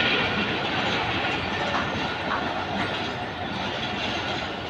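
Pakistan Railways passenger coaches rolling past as the train pulls out, their wheels rumbling and clattering on the rails. The sound eases off slightly as the last coach goes by.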